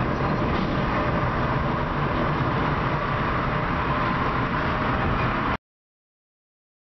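Steady road noise of a car driving at speed on a freeway, which cuts off abruptly to silence near the end.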